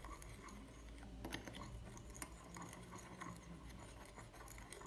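Metal spoon stirring salt into warm water in a small glass bowl: faint scraping with light, irregular ticks of the spoon against the glass as the salt dissolves.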